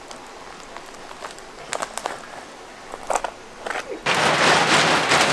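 Clear plastic sheeting crinkling and crackling as a roll of it is unrolled over loose hay. About four seconds in it turns into a loud, continuous rustle as the sheet is pulled and spread out.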